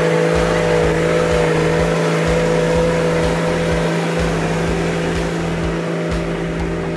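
Off-road 4x4 vehicle's engine running steadily at a nearly constant pitch, getting slightly quieter toward the end.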